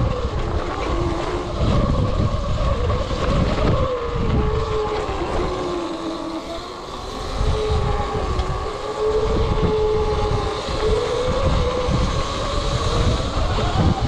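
Electric dirt bike's motor whining while riding, the pitch dropping over the first several seconds and climbing back up near the end as speed changes, over a steady low rumble.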